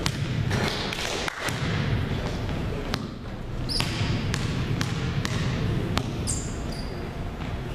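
Basketballs bouncing on a hardwood gym floor, irregular knocks from more than one ball being dribbled, with a couple of short high squeaks.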